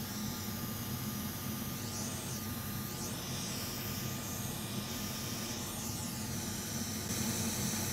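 Hot air rework station blowing with a steady hiss over a low hum, while a chip is positioned with tweezers for soldering; the hiss gets a little louder near the end.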